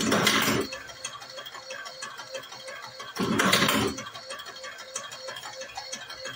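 Semi-automatic cigarette rolling machine running in short bursts: twice, about three seconds apart, each under a second long.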